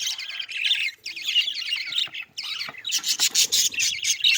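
A flock of budgerigars chattering, a dense stream of overlapping short chirps and warbles, with a few scratchy clicks mixed in.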